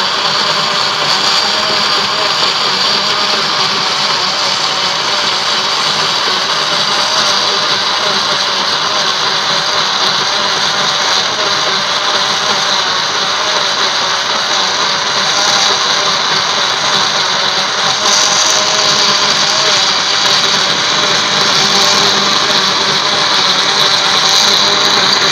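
Electric countertop blender running steadily at full speed, whirring through liquid cake batter, then cutting off abruptly at the end.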